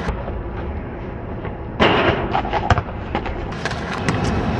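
Basketballs bouncing on an asphalt court, a few sharp thuds, most of them in the last second or so, over a steady low rumble.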